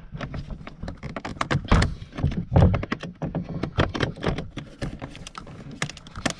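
Hands working at a car's door trim panel and its wiring connector: a run of irregular plastic clicks and knocks.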